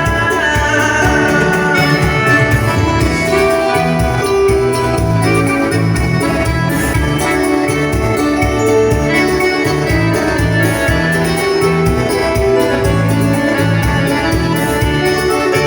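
Bolero played by a live band: an instrumental passage without singing, led by an electronic keyboard with an organ-like sound over a steady, regular bass line.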